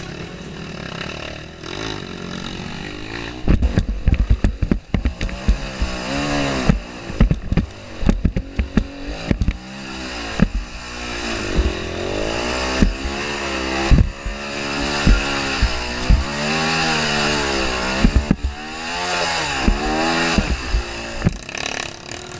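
Enduro dirt bike engine revving up and down again and again as it climbs a rough, muddy trail, with sharp knocks and clatter from the bike bouncing over rocks and roots.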